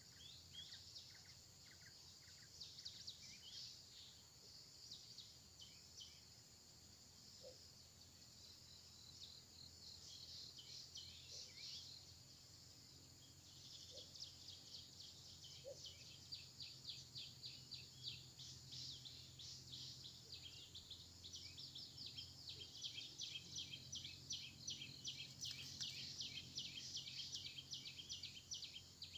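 Faint outdoor ambience among trees with high-pitched chirping, scattered at first and becoming a rapid, steady run of chirps about halfway through.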